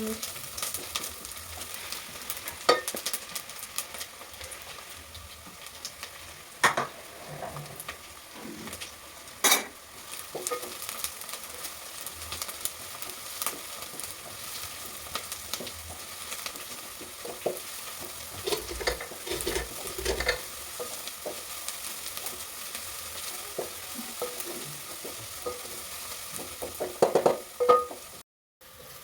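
Food sizzling as it fries in a cooking pot, with a spoon stirring and now and then knocking sharply against the pot.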